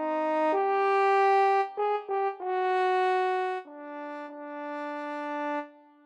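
Background music: a slow, unaccompanied brass-sounding melody of about six long held notes, the last one softer and fading out near the end.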